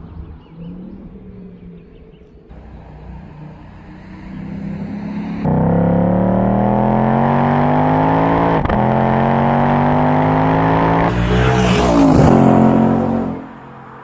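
Ford Mustang GT's 5.0-litre V8 exhaust, faint at first, then loud and close as the car accelerates hard: the pitch climbs, drops at an upshift about halfway through, and climbs again.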